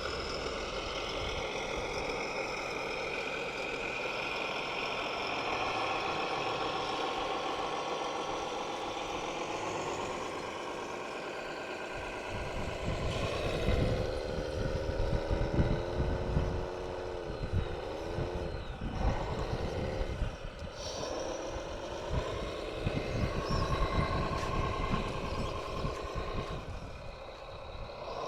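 Small electric motors of radio-controlled construction machines whining, their pitch rising and falling as they speed up and slow down. From about halfway through, a low rumbling crackle joins in.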